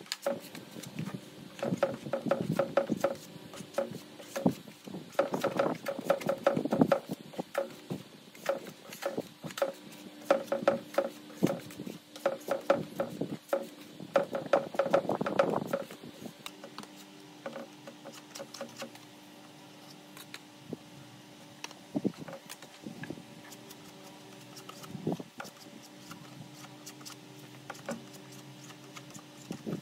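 Hand sanding of body filler on a car door with a sanding block: repeated rubbing strokes and light knocks, busiest in the first half and thinning out after about sixteen seconds, over a faint steady tone.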